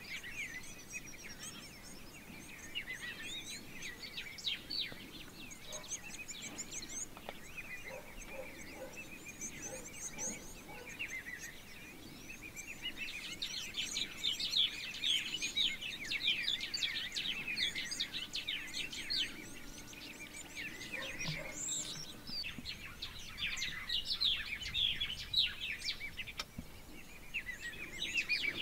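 Many small birds chirping and trilling over one another, thickest from about halfway through.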